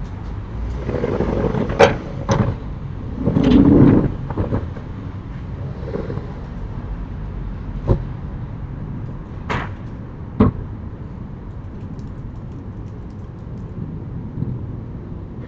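Sliding wooden or metal storm shutters (amado) rattling along their track for a few seconds near the start. Several separate sharp knocks follow, the loudest about ten seconds in, typical of banging on a front door. A steady low rumble runs underneath.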